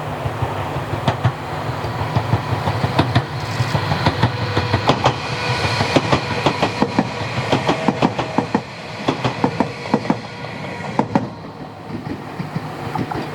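Tobu Railway 500 series 'Revaty' limited express train running, with a steady low rumble and a rapid clickety-clack of wheels over rail joints. The clicks come thickest in the middle and thin out over the last few seconds as the sound gets quieter.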